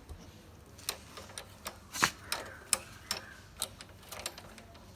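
Sharp, irregular metallic clicks and taps from tools working on a motorcycle's rear brake, about a dozen over a few seconds.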